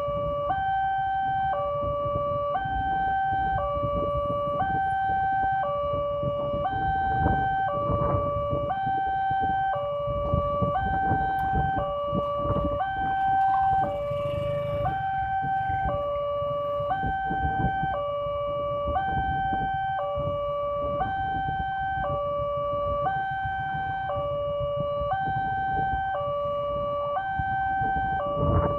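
Railway level-crossing warning alarm sounding from the signal's loudspeaker: an electronic two-tone signal, a lower and a higher tone alternating about once a second, over a low steady rumble.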